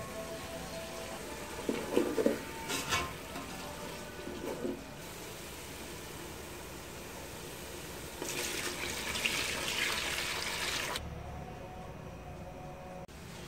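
Chicken stock poured from a bowl into a metal pot of cooked masala, splashing for about three seconds in the second half and stopping suddenly. Earlier, a few sharp knocks against the pot.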